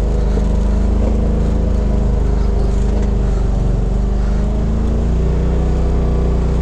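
2018 Polaris RZR XP Turbo's turbocharged twin-cylinder engine running at a steady, even speed as the side-by-side drives over snow.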